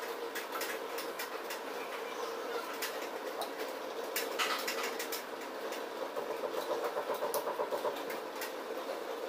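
Scattered light clicks and taps of glass strips being handled and set in place on a board, over a steady hum, with a rapid pulsing from about six to eight seconds in.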